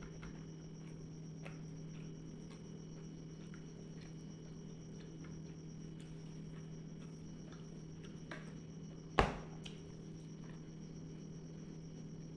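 A person eating quietly, with scattered faint clicks and mouth sounds and one sharp clack about nine seconds in, over a steady low hum.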